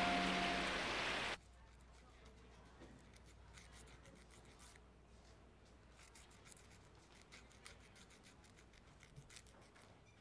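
Film score music cuts off suddenly just over a second in. Then come faint, repeated rasping strokes of an emery board filing fingernails.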